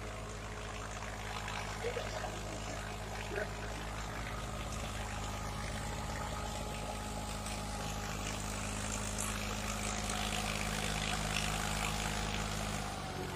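1972 Massey Ferguson 135 tractor's engine running steadily under load, pulling a harrow through tilled soil. The engine note shifts slightly about four seconds in.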